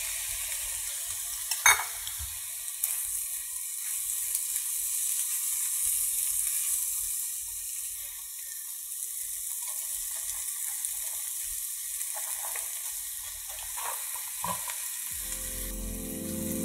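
Kothu roti ingredients frying in a hot pan, a steady sizzle, with a few light clicks of stirring about two seconds in and again near the end. Music comes in just before the end.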